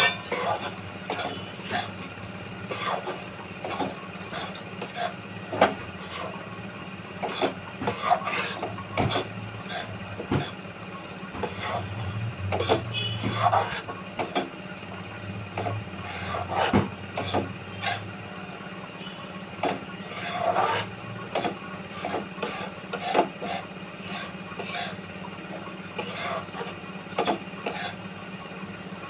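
Flat metal spatula scraping and stirring gram flour roasting in ghee in a metal kadhai, with irregular rasping strokes against the pan: besan being roasted until its colour changes.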